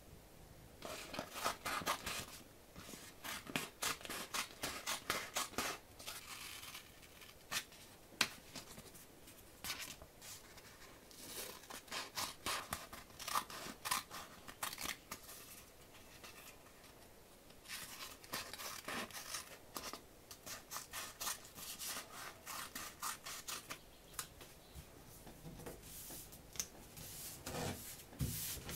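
Scissors snipping through paper, in runs of quick cuts separated by short pauses.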